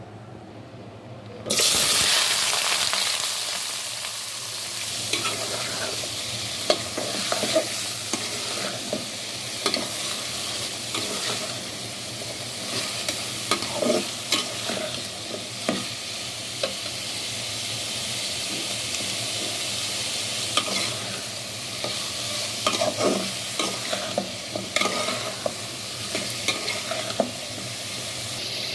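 Food sizzling in hot oil in a cooking pan, starting suddenly and loudly about a second and a half in, then sizzling steadily while a spatula stirs and scrapes against the pan with frequent light clicks.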